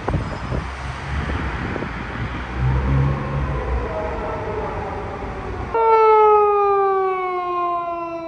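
Street traffic running, then about two-thirds in a Japanese police car siren starts suddenly and loud, its wail sliding slowly down in pitch.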